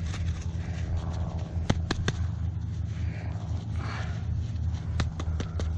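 Digging by hand in dirt to uncover a metal-detector target: scraping and several sharp clicks of a digging tool against stones and debris, over a steady low rumble.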